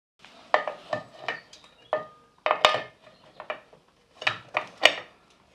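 Irregular metallic clinks and clanks as steel drum brake shoes and return springs are handled and worked into place on an axle backplate, some knocks ringing briefly.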